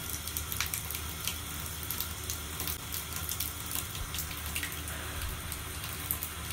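A steady hiss with a low hum under it and a few faint clicks scattered through.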